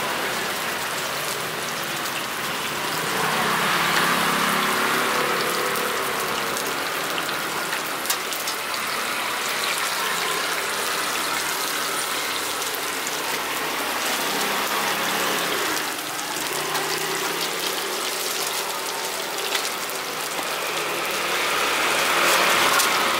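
Food frying in a wide pan of hot oil, a steady sizzle that swells louder about four seconds in and again near the end.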